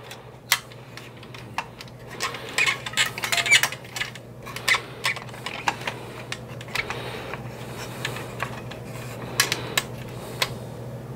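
Hard plastic parts of a 1983 G.I. Joe Skystriker toy jet clicking and tapping as the landing-gear wheels are lined up and pressed into holes in the fuselage half: irregular small clicks and knocks, some sharper than others.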